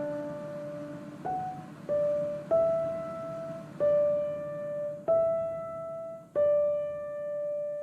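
Slow solo piano background music: single notes struck one at a time, each ringing on and fading before the next, the last note held longer near the end.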